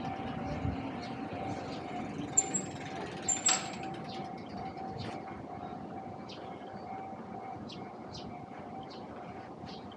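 Street ambience: a steady hum over a low traffic rumble that fades in the first second or so, with two brief high squeaks and a sharp click about three and a half seconds in.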